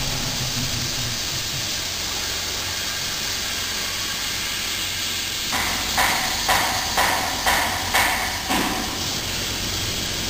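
Antique compressor hissing air steadily, with six sharp, evenly spaced puffs about half a second apart a little past the middle.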